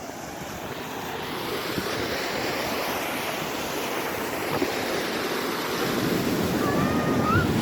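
Waterfall: water pouring and splashing in a steady rush that grows louder.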